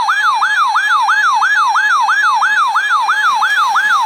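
Electronic emergency alert tone, a loud siren-like warble sweeping rapidly up and down about four times a second, sounding for an incoming flash flood warning.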